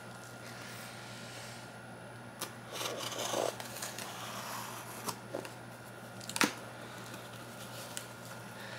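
Utility knife blade slicing through packing tape on a cardboard box, with a rasping scrape about three seconds in. A few clicks of the knife and cardboard, the loudest a sharp click a little past the middle.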